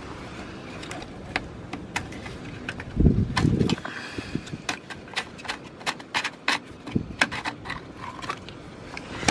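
Scattered sharp clicks and small knocks of a plastic brake fluid reservoir cap being handled on a BMW E28's master cylinder, with one heavier knock about three seconds in.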